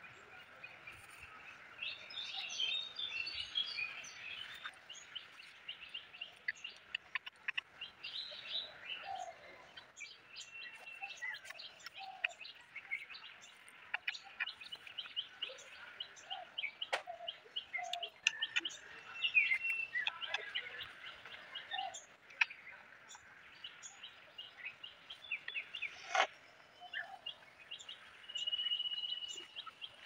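Small birds chirping and calling, many short high notes with some lower calls mixed in, with a few sharp clicks.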